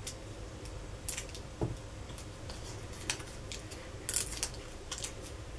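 Light rustling and small clicks of cardstock pieces being handled and pressed together on a tabletop, with a short crinkly rustle about four seconds in.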